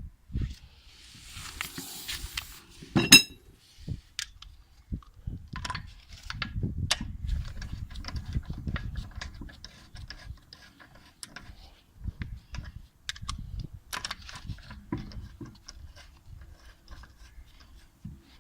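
Metal tools and parts being handled, with scattered clinks and knocks and one loud ringing metal clang about three seconds in.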